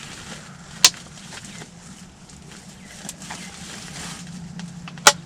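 Three sharp clicks close to the microphone, one about a second in and two near the end, over a quiet steady low hum.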